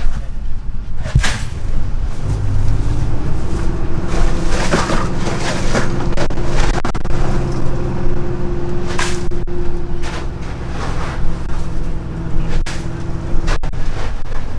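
Boat engine running steadily as the boat gets under way, a continuous low hum with a few sharper knocks and splashes over it.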